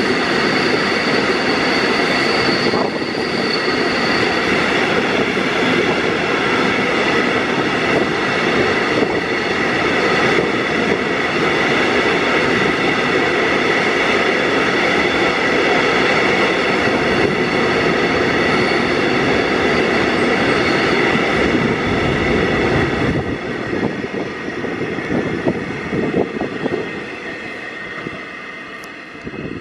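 Open freight wagons of a long coal train running past close by: a loud, steady noise of wheels on rail with several high ringing tones held over it. About 23 seconds in the last wagons go by and the sound fades away.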